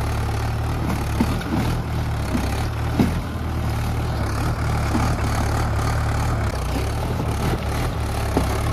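Tractor diesel engine running steadily at an even pace, with a brief knock about three seconds in.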